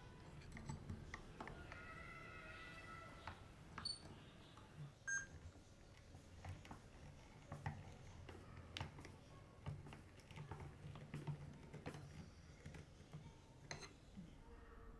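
Faint clicks and short squeaks of a screwdriver driving screws through a small anvil's base into a wooden board.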